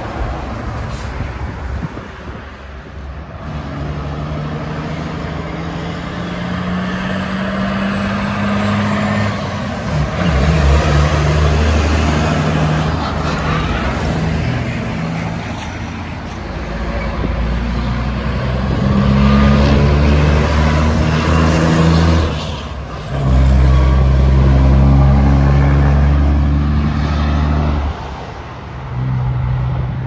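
Several heavy diesel trucks passing one after another on a highway, their engines loud over tyre and road noise. Each engine note holds a pitch and then jumps to another, with the loudest pass near the end.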